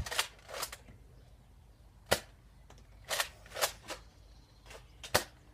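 Spring-powered Nerf blasters firing foam darts: about eight sharp pops and clacks at irregular intervals, two of them especially sharp, about two and five seconds in.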